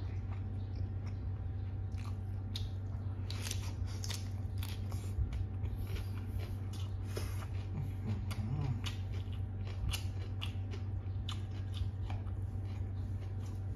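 A person chewing mouthfuls of papaya salad close to the microphone: many short, crisp crunches and wet mouth clicks, over a low steady hum.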